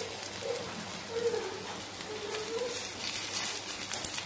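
Aloo tikki pieces sizzling in shallow oil on a flat iron tawa, a steady hiss with light crackling that picks up near the end. A low, warbling cooing call repeats several times in the background.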